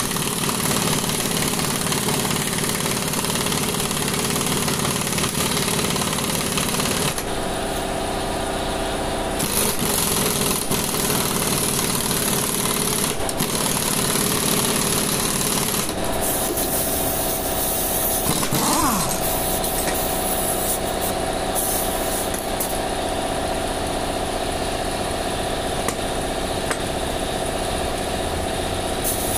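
Pneumatic impact wrench hammering rapidly as it drives the screw of a bead breaker against a tractor tyre bead that is very hard to break. The pitch of the hammering shifts a few times, around a quarter and halfway through.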